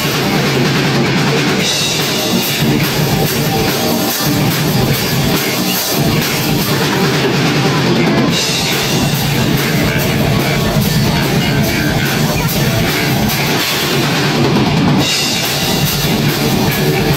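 A live band playing loudly: a drum kit and electric guitar with bass, played as one continuous song.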